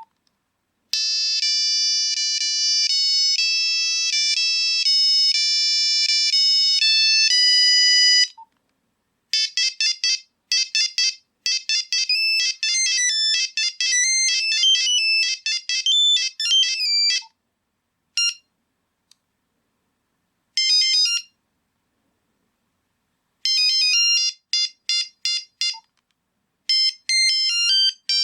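Nokia 3310 mobile phone ringtones, one simple single-line beeping melody after another. First comes a tune of held notes for about seven seconds, then a fast run of short notes, then several shorter beeping snatches with silent gaps between them.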